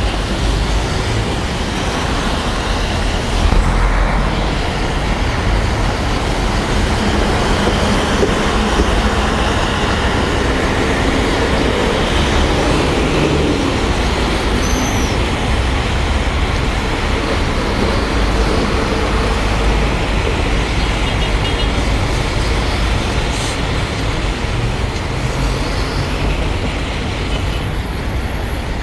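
Steady riding noise from a motorcycle in wet traffic: wind rushing over the microphone and tyre hiss on the rain-soaked road, with the engine underneath.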